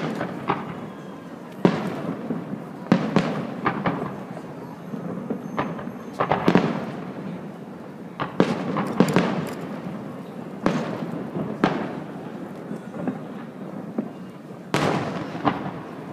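Aerial fireworks shells bursting in an irregular string of sharp bangs, about fifteen in all, each trailing off in a rumble; one of the loudest comes near the end.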